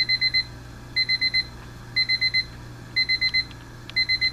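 Westclox 75032 battery quartz alarm clock's alarm sounding: rapid electronic beeps in groups of four, one group about every second, each beep at the same high pitch.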